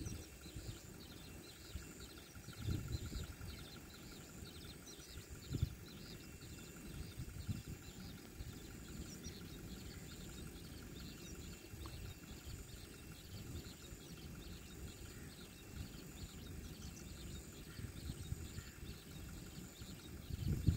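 Faint open-field ambience: many small bird chirps and a steady, pulsing insect trill over a low, uneven rumble with a few soft bumps.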